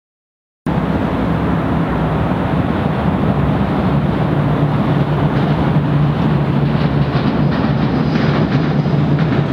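Steady noise of heavy road traffic on the nearby highway bridges, with a low engine drone under it. It cuts in suddenly less than a second in.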